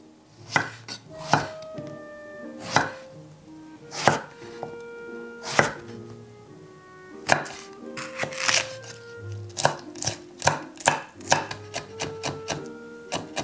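Kitchen knife cutting down onto a wooden cutting board: separate knocks about once a second or so as an eggplant is sliced into thick diagonal rounds, then quicker, closer chopping in the second half as chilies are minced.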